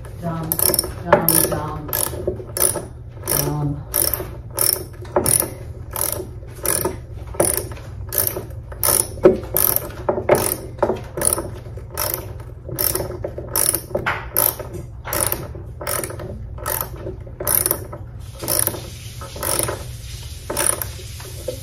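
Ratcheting screwdriver driving a screw through a curtain rod bracket into a wall anchor, the ratchet clicking on each back-swing with a sharp click every half second or so.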